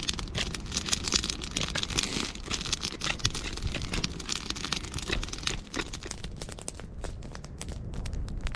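Small campfire of dry twigs and sticks burning, crackling and snapping in a dense run of sharp pops over a steady low rumble.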